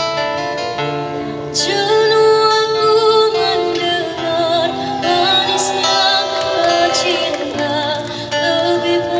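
A young girl singing a slow song with vibrato through a microphone and PA, backed by a busking band's strummed acoustic guitar and electric guitars. The voice comes in about a second and a half in, over guitar chords.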